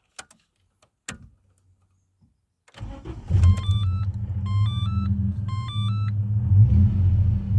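Ford AU Falcon ute's engine starting after two sharp clicks, then idling steadily through its 2.5-inch exhaust. An electronic chime plays three times over it.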